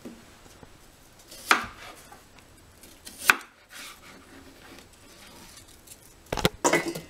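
Kitchen knife slicing apples on a plastic cutting board: a few sharp knocks of the blade on the board, about a second and a half in, again past three seconds, and a quick run of them near the end.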